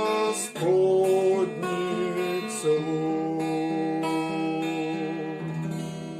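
Closing bars of a hymn played on strummed acoustic guitar, with held chords that fade away near the end.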